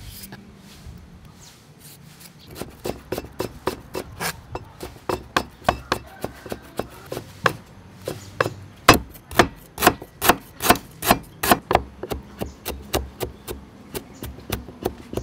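Cleaver chopping peeled ginger into thin strips on a wooden chopping board: a steady run of sharp knife knocks on the wood, about three a second, loudest in the second half. Before the chopping starts there is a quieter stretch of faint scraping as the ginger is peeled.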